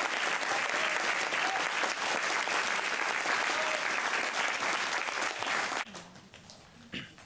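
Audience applauding steadily, the clapping dropping away sharply about six seconds in.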